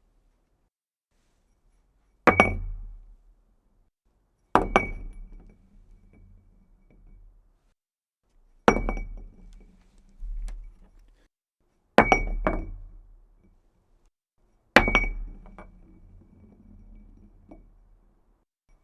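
A glass dropped onto a hard floor five times, each drop a sharp clink with a brief ring, some followed by a smaller bounce and the glass rolling to a stop.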